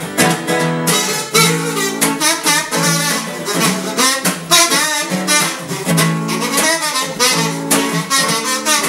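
Instrumental passage: acoustic guitar strumming under a buzzy, wavering lead melody line, with no singing.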